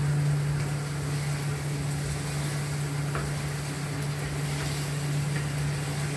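Fish curry cooking in a pan on the stove: a steady sizzling hiss over a constant low hum, with a few light clicks.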